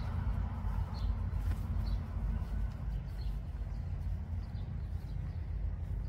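Birds chirping now and then, several short high chirps about a second apart, over a steady low rumble.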